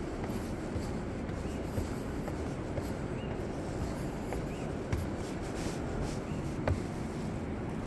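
Steady low rush of running water from the Río Blanco and its waterfall, with a few light clicks.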